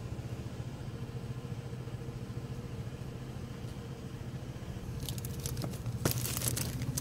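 Clear plastic carrier bag rustling and crinkling in the hand during the last couple of seconds, with a sharp click about six seconds in as the glass door is reached. A steady low rumble lies underneath throughout.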